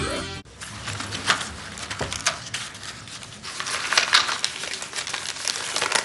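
Paper and thin card rustling and crinkling in irregular bursts as a folded package leaflet is pulled from a small medicine box and unfolded. A music track cuts off about half a second in.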